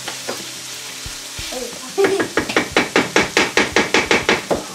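Minced meat with onion and carrot sizzling in a frying pan while a wooden spoon stirs it. About two seconds in, the stirring turns into quick, even scraping strokes against the pan, about seven a second.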